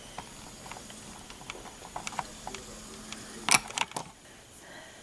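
Light scattered clicks and taps of handling, with a sharper cluster of clicks about three and a half seconds in, over a faint steady hum.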